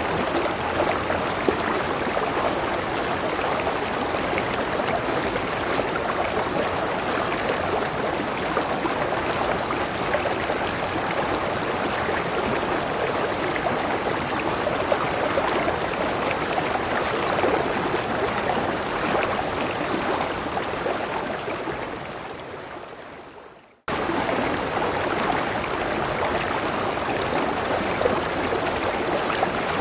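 River water rushing over a small waterfall, a steady even splashing. About three-quarters of the way through it fades out, goes silent for a moment, then cuts abruptly back in at full strength, as at a loop point of the recording.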